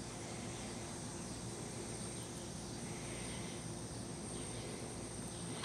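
Faint outdoor ambience with a steady, high-pitched insect drone, like crickets, over a low rumble.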